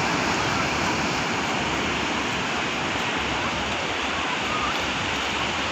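Sea surf breaking and washing in over a flat sandy beach: a steady rushing hiss of waves and shallow water.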